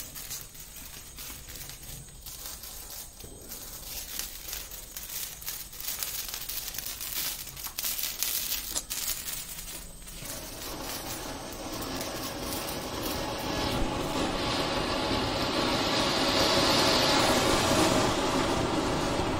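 Fireworks burning: a fizzing crackle of small fireworks, then from about halfway a ground fountain firework spraying sparks with a louder, steady hissing rush that builds toward the end.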